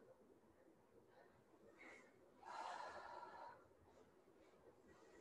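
Faint, mostly near-silent room with one hard breath about two and a half seconds in, lasting about a second, from a woman breathing with exertion while lifting dumbbells.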